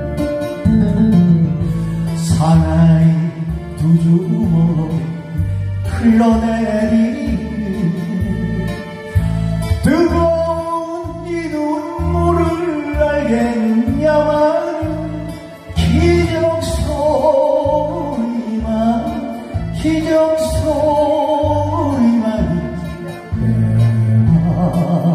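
Korean trot song: a man singing over a karaoke backing track with a steady beat.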